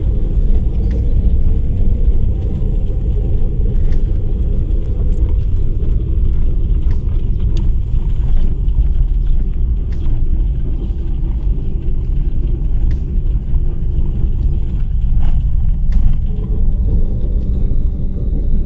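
Car heard from inside the cabin while driving over a rutted dirt track: a steady low rumble of tyres and engine, with scattered small knocks and rattles.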